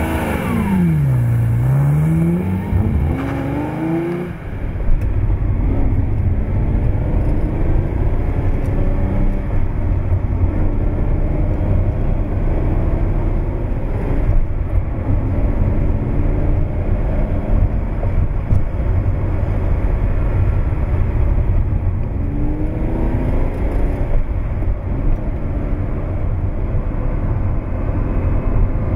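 1973 Ferrari 365 GTB/4 Daytona's 4.4-litre V12 under way. In the first few seconds the revs drop and then climb steeply. After that it runs on steadily under load, with several short rises in revs as it accelerates.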